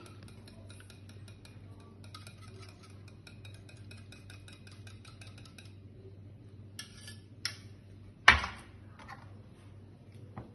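Metal spoon scraping and tapping quickly around the inside of a small stainless saucepan of marinade, then a few separate clinks of the spoon on the kitchenware. The loudest is a sharp, ringing clink about eight seconds in.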